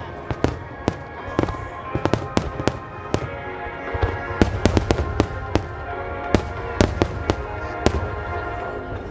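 Aerial fireworks bursting in many sharp, irregular reports over a low rumble, the bursts coming thicker about four seconds in, with music with held notes playing underneath.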